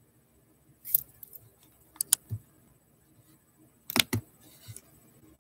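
A few sharp clicks and taps from handling close to the microphone: one about a second in, a quick cluster about two seconds in, and a louder double click about four seconds in, followed by a soft rustle.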